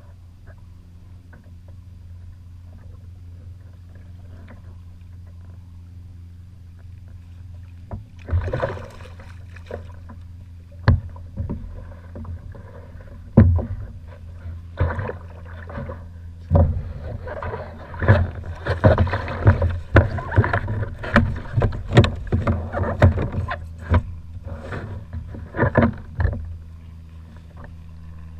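Water splashing, with sharp knocks and clicks on a plastic sit-on-top kayak's hull, as a smooth-hound is hand-lined alongside and lifted aboard. The busy stretch starts about a third of the way in and stops shortly before the end, over a steady low hum.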